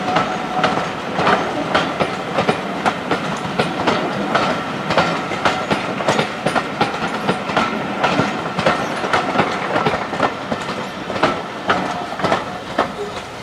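Passenger coaches' wheels clicking over rail joints as the train rolls slowly past on a curve, several knocks a second over a steady rumble. A faint high wheel squeal comes and goes.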